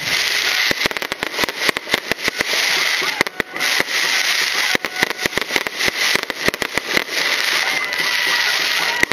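Fireworks going off in a rapid, irregular barrage of sharp bangs and cracks, many close together and overlapping.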